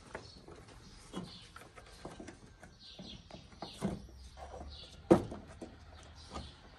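Sharp plastic clicks and knocks from hands working the car's plastic air intake duct and air filter housing, with one loud snap about five seconds in. Birds chirp briefly in the background.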